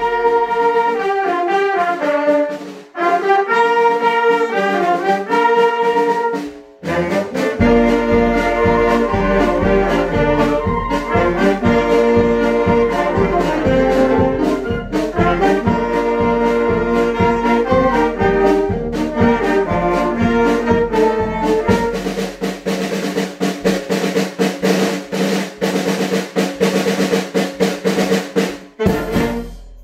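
Children's brass band playing: trumpets and trombones carry the melody, with a steady drum beat coming in about seven seconds in and cymbals joining near the end. The piece ends on a final chord that cuts off sharply just before the end.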